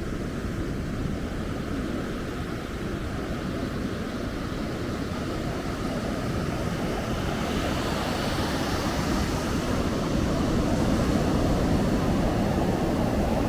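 Ocean surf rushing on the beach with low wind rumble on the microphone, a steady noise that swells gradually louder in the second half.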